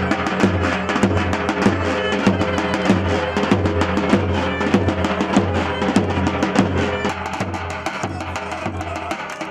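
Davul and zurna playing a halay dance tune: a regular deep beat of about two strokes a second on the big double-headed drum, with sharp stick strikes, under a held, reedy pipe melody. The deep drum beat drops away near the end.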